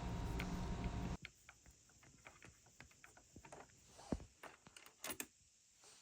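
Faint small clicks and taps of a Phillips screwdriver working a small screw out of the PS5's metal SSD slot cover, the loudest two about four and five seconds in. A steady low hum cuts off about a second in.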